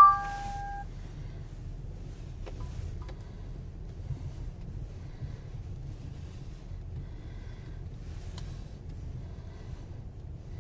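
A short electronic beep at the very start, then a steady low rumble with a few faint clicks.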